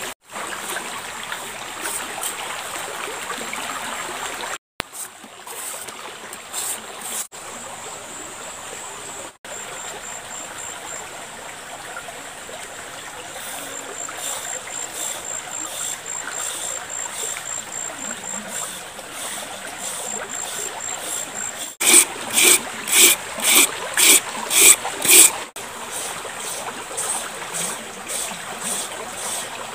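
A shallow river flowing steadily, with green papaya being shredded by hand in regular scraping strokes; near the end comes a quick run of about eight loud strokes.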